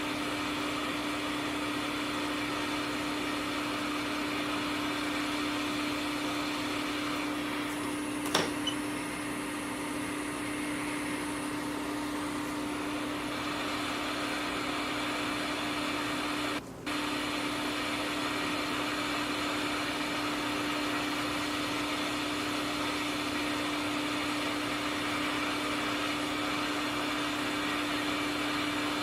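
Hot air rework station blowing steadily, a fan hiss over a constant hum, as it heats a laptop logic board to desolder a small fuse. There is a single sharp click about eight seconds in, and the sound cuts out for a split second about halfway through.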